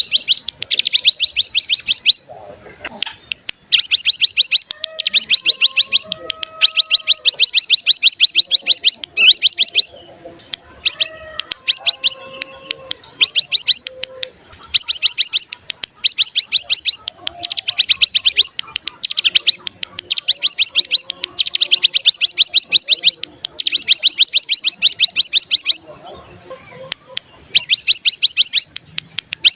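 Ciblek gunung (a mountain prinia) singing its 'ngebren' song: loud, rapid, rattling trills of many quick notes, each about a second long, repeated over and over with short breaks.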